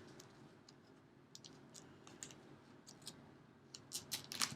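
Scattered light clicks and taps of an opened cardboard gift box and its contents being handled, with a quick cluster of louder clicks near the end.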